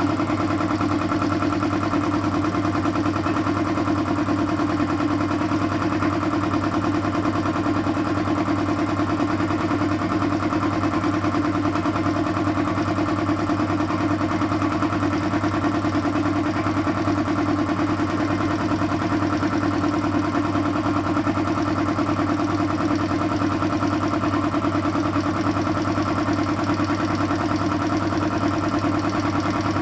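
A 2 hp electric air compressor running steadily with an even, unchanging hum.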